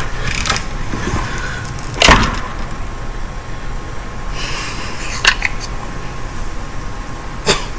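Sharp knocks and bumps from a camera being carried by hand: the loudest knock comes about two seconds in, with two smaller ones later, over a low rumble.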